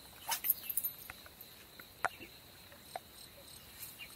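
Quiet waterside ambience: a steady high-pitched tone with a few short, sharp chirps or clicks, the clearest about two seconds in.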